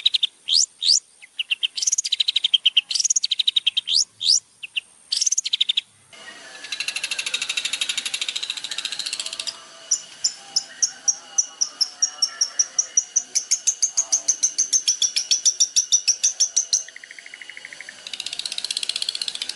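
Songbirds singing. Sharp, high whistled notes slur up and down, then switch about six seconds in to a fast, even run of high chips at about four or five a second.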